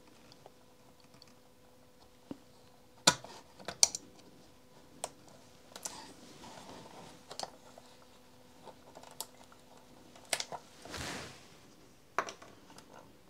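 Heat-shrink sleeving being cut and pulled off a capacitor with a blade: a scatter of sharp plastic clicks and snaps, loudest about three and four seconds in, with a short rustling swell near eleven seconds.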